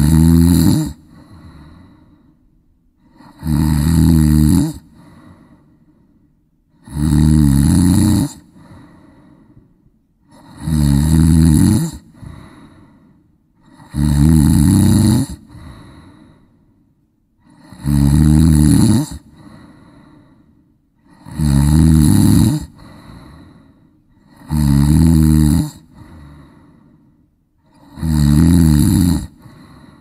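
A person snoring deeply and regularly, with a loud, rattling snore about every three and a half seconds. Each snore is followed by a fainter breath.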